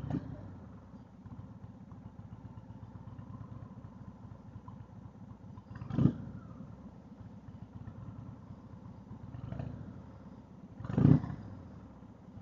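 Indian motorcycle running under way, a steady low engine sound, broken by three brief loud bursts: at the start, about six seconds in, and near the end, the last the loudest.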